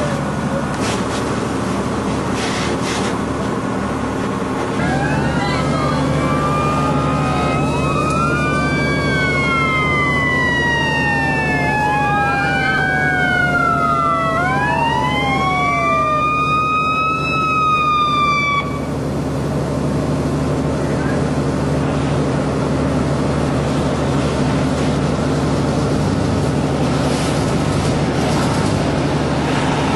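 Several emergency vehicle sirens wailing at once, their pitches sweeping up and down and overlapping, over the steady low running of a heavy engine. The sirens start about five seconds in and cut off together a little past halfway, leaving the engine running.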